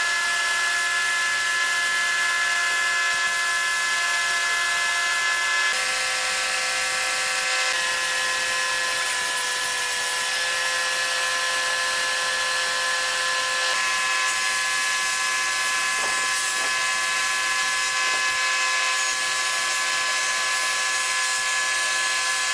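Compressed-air gravity-feed spray gun spraying wood finish: a steady hiss of air with a high whine. The pitch of the whine shifts slightly a few times.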